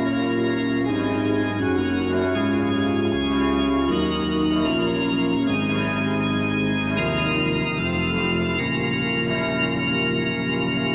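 Background music: an organ playing sustained chords that change about once a second.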